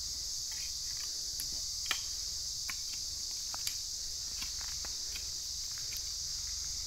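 Steady high-pitched drone of insects, with scattered sharp knocks and scrapes of a hand digging tool striking dry, hard soil, two of them louder about two and four seconds in.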